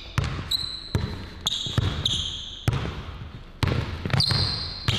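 Basketball dribbled on a hardwood gym floor, bouncing at an uneven pace of one to two bounces a second, with short high squeaks from sneakers on the court between bounces.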